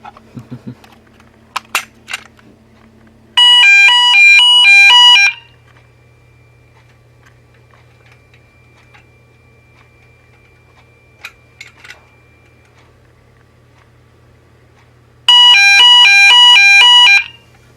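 Fire alarm sounder on a Gent Xenex system, set off from a manual call point, giving two loud blasts of about two seconds each, some twelve seconds apart, of a rapidly alternating two-tone warble. A few sharp clicks come shortly before the first blast.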